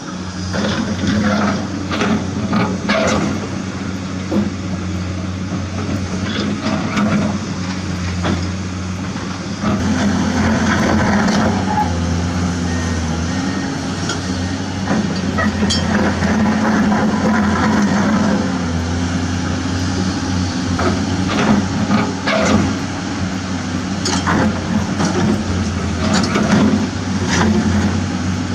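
Truck engine running steadily at a low pitch that rises and falls slightly from time to time, with scattered clicks and knocks.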